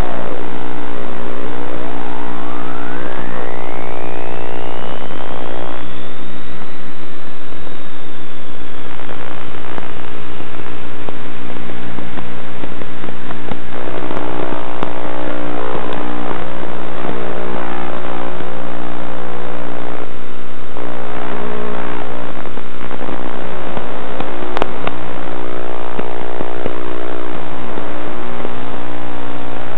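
Model airplane's motor running, heard from on board, a loud steady buzz with a whine that dips, climbs high about six seconds in and then slowly sinks.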